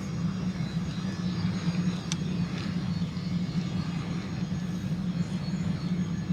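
Camera drone hovering, a steady low propeller hum, with one faint click about two seconds in.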